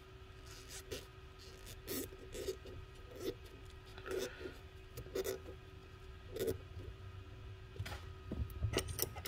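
Soft rubbing, rustling and small clicks of fingers handling a motorcycle brake master cylinder and pressing masking tape over its openings, with a short cluster of louder clicks near the end.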